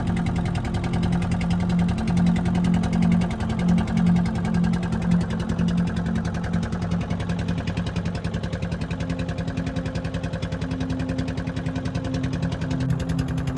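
A small engine running steadily, its note shifting slightly higher about nine seconds in.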